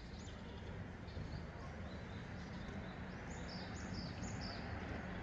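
Small songbirds chirping: short high downward-slurred notes, a quick run of them about three seconds in, over a steady background hiss.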